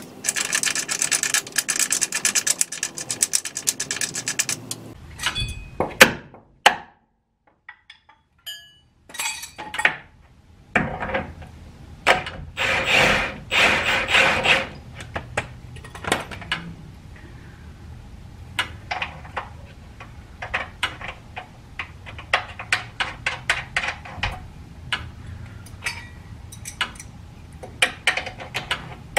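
Cordless impact wrench hammering in two bursts of a few seconds each, driving in the bolts of a new lower control arm. Between and after the bursts come many separate clicks and clinks of metal tools and parts.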